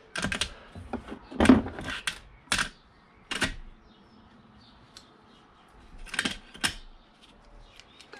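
Metal sockets and tools clinking and clattering while a 12 mm socket for a 3/8-inch drive ratchet is sought. Several sharp clinks come in the first few seconds, then a quieter stretch, then two more clinks about six seconds in.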